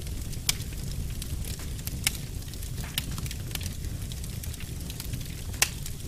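Log fire crackling in a fireplace: irregular sharp pops and snaps over a steady low rumble, with the loudest pops about half a second in, near two seconds, and near the end.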